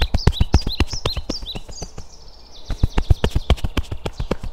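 Cupped hands patting the chest and front of the body in quick, uneven pats, about five a second, as a qigong self-massage. A small bird chirps repeatedly in the background, most in the first half.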